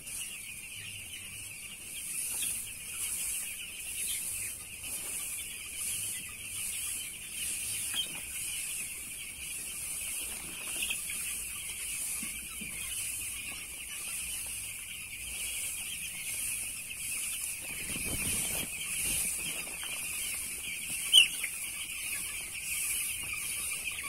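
A flock of eight-day-old broiler chicks peeping continuously in a dense, high-pitched chorus. Above it runs a fainter, even, high pulsing sound, and there is one sharp click about 21 seconds in.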